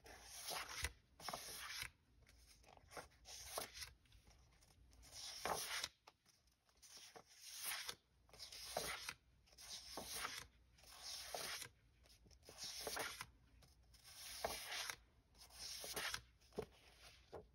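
Sheets of printed craft paper being handled and turned one after another, with a short paper rustle roughly once a second.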